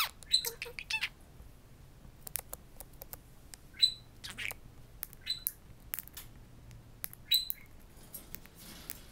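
Budgerigar chattering at its reflection in a mirror: scattered short chirps, squawks and clicks, with a few brief high whistled notes.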